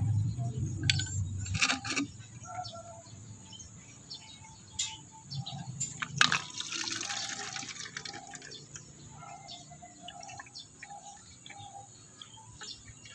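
Engine coolant draining from a scooter's coolant hose into a plastic bottle, trickling and splashing as the bottle fills. A few sharp clicks and knocks come from handling the hose and bottle. The coolant is being drained because it may be contaminated with floodwater.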